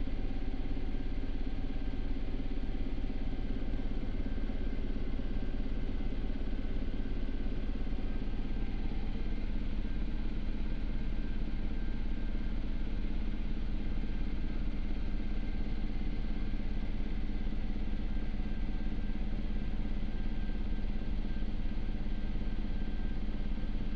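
Sikorsky S-92 helicopter in cruise, heard inside the cockpit: a steady drone of rotors and twin turboshaft engines, with a constant high whine over a deep hum.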